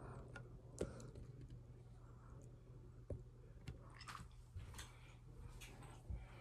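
Quiet room tone: a low steady hum with scattered faint clicks and taps, the sharpest one just under a second in.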